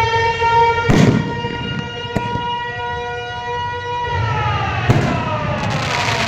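Air-raid warning siren wailing, holding its pitch and then winding down from about four seconds in. Two loud bangs cut through it, about a second in and near five seconds, followed by a few sharp cracks near the end.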